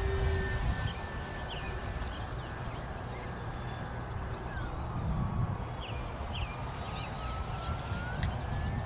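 Electric motor and propeller of an FMS P-40B RC warbird flying on a 3S LiPo, heard as a thin whine overhead; its pitch drops about four and a half seconds in and climbs back near the end. A low rumble of wind on the microphone runs under it.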